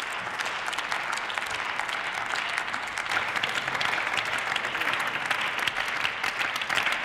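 Applause from many people clapping in the chamber, continuous and growing a little louder about three seconds in.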